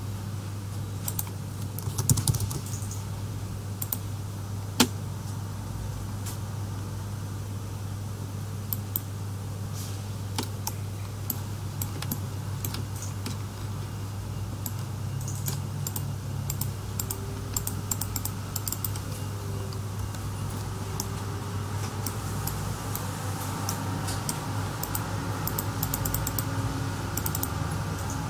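Irregular clicking from a computer keyboard and mouse being worked, over a steady low hum.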